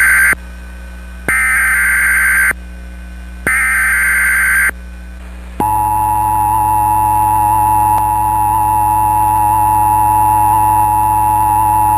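Emergency Alert System broadcast signal: the tail of one SAME header data burst and then two more, each a harsh electronic warble just over a second long with short gaps between, followed about five and a half seconds in by the steady two-tone EAS attention signal. Together they announce an emergency alert, here a tornado warning.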